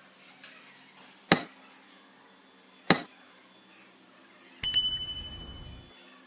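Two sharp knocks, then a metal object clinking twice and ringing with a bright bell-like tone for about a second, as metal tools and parts are handled and set down.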